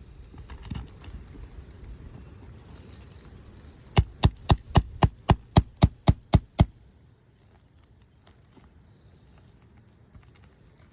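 Roofing hammer striking on the roof: a quick run of about eleven sharp blows, about four a second, lasting under three seconds, partway through.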